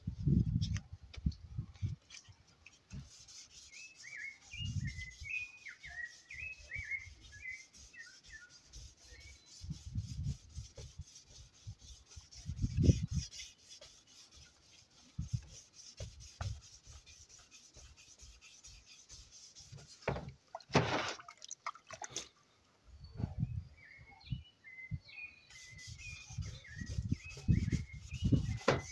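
Sandpaper rubbed by hand along a painted metal bicycle frame tube: quick back-and-forth rubbing strokes, broken by low thumps as the frame and hands shift on the floor. Birds chirp now and then.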